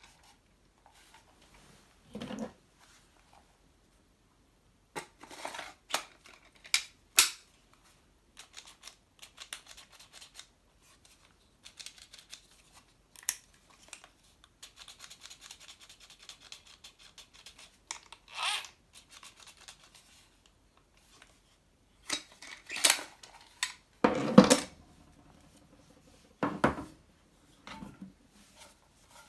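Hard plastic and metal objects being handled: scattered clicks, knocks and rubbing, with a faint fast ticking for a few seconds in the middle and a few heavier knocks near the end. No motor is running.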